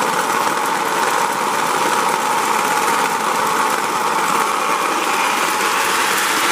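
Postwar Lionel O-gauge steam locomotive running along the track: a steady mechanical whirr from its electric motor and gears, with its wheels rolling on the rails.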